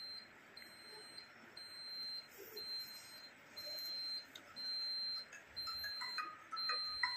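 Electronic alarm beeping a single high tone about once a second, each beep a little over half a second long. Near the end a tune of short notes comes in under the beeps.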